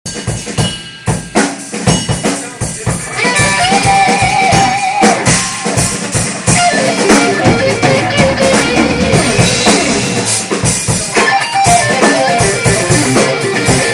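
Band playing at a sound check: a drum kit with kick drum strokes, joined about three seconds in by held guitar notes, and the drums and guitar play on together.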